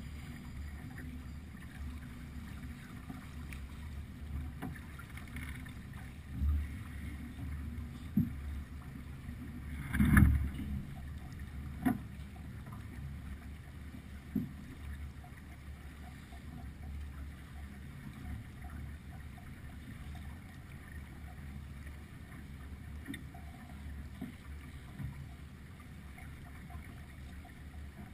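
Steady low wash of a sailing yacht under way, water moving along the hull with some wind noise, broken by a few short knocks from the boat, the loudest about ten seconds in.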